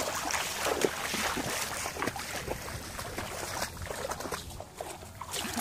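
Feet wading through shallow water, with irregular splashing and sloshing as they step.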